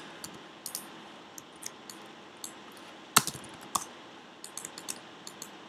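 Scattered light clicks and taps of a computer keyboard and mouse, the sharpest about three seconds in.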